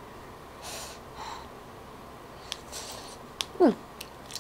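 A person tasting hot food: two soft puffs of breath, a few small clicks, and a short falling 'mm' about three and a half seconds in.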